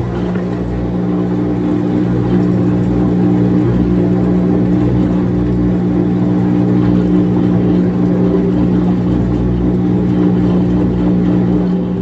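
Midea top-load washing machine spinning its drum at high speed while the drain pump still runs: a steady hum and rumble that builds up over the first couple of seconds.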